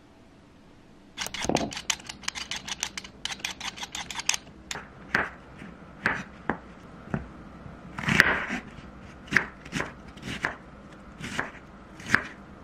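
Kitchen knife cutting button mushrooms and then an onion on a wooden cutting board: a quick run of light taps at first, then single knocks of the blade on the board about once a second.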